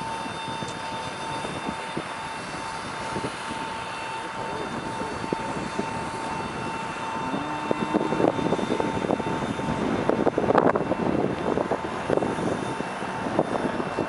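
Steady high turbine whine over a broad hiss from a parked Boeing C-17 Globemaster III jet transport. From about halfway through, uneven crackling knocks come in on top.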